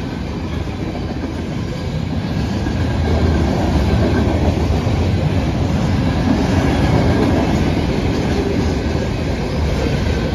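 Train rolling past close by: a steady rumble of wheels on the rails that grows a little louder about three seconds in.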